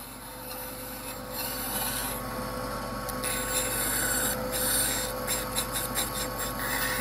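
Bandsaw running with a steady hum while its blade cuts into a wooden board fed by hand, the rasping of the cut coming and going in bursts and growing louder from about a second in.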